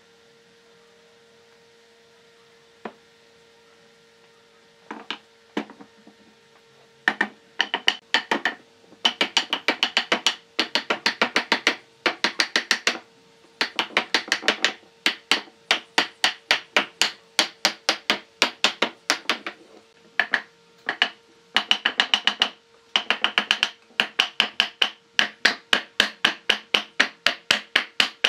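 Wooden mallet striking a wooden frame rail, driving it down onto glued tenons to seat the mortise-and-tenon joints. A few separate knocks, then from about seven seconds in quick runs of sharp knocks, several a second, in groups with short breaks.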